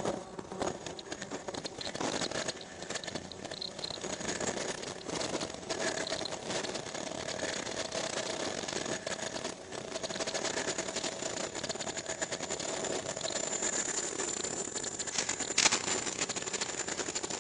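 Ultrasonic doctor-cap making machine running, a continuous rattling clatter from its feed and cutting mechanism. A steady mid-pitched tone runs through the middle, a high whine comes in over the second half, and there is one sharp click near the end.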